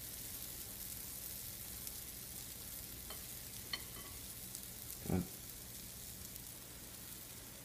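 Batter sizzling faintly and steadily on a hot, oiled 1901 Griswold cast-iron waffle iron over a gas flame, with a few light clicks and one short, louder bump about five seconds in.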